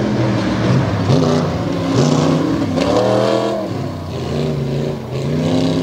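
Modified tough-truck engines revving hard as two trucks race a dirt obstacle course, the pitch rising and dropping several times as the drivers get on and off the throttle.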